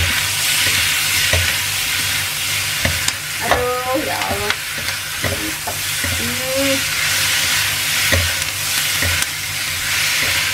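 Parboiled beef rib pieces, chilies and shallots sizzling in hot oil in a stainless steel wok, stirred and scraped with a spatula that knocks against the wok now and then.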